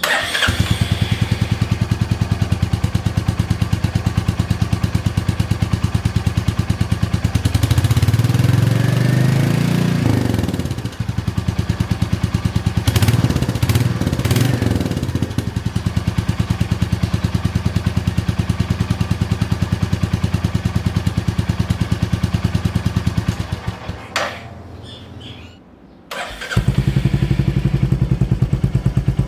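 Royal Enfield Meteor 350's single-cylinder engine idling with an even pulse, revved twice by short blips of the throttle, the pitch rising and falling each time. Near the end the sound drops away for a couple of seconds and comes back idling.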